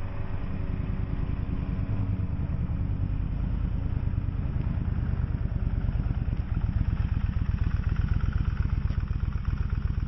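Motorcycle engine running, a steady, rapid low firing beat that grows a little louder and more pulsing in the second half.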